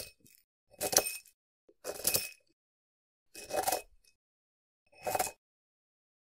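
Black plastic toy bricks clattering and clinking against a ceramic mortar bowl as a wooden pestle is pushed into them, in five short bursts about a second or a little more apart.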